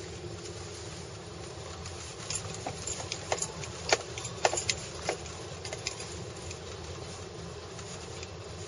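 Steady low rumble heard inside a car, with a cluster of sharp clicks and knocks for about three seconds, from about two seconds in to past the middle.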